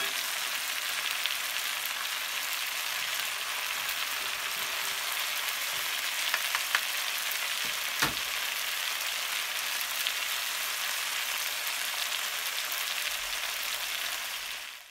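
Sliced potatoes, carrots and zucchini sizzling steadily as they stir-fry in a pan. A few sharp clicks come about six to eight seconds in, and the sizzle cuts off suddenly at the end.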